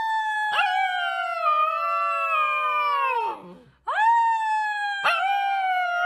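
Husky-type puppy howling: two long howls, each holding a high pitch and then sagging down at its end, the second beginning about four seconds in.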